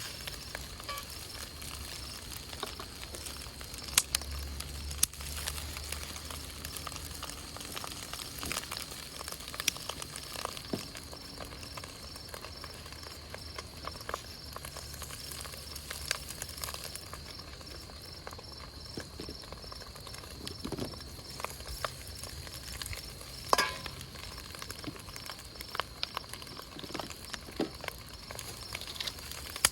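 Food sizzling in a wok over a crackling wood campfire: a steady hiss broken by many sharp pops, a few louder ones about four seconds in and about three-quarters through.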